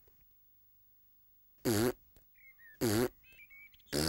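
A cartoon piglet hiccupping: three loud, short 'hic' sounds about a second apart, each with a pitch that dips and comes back up.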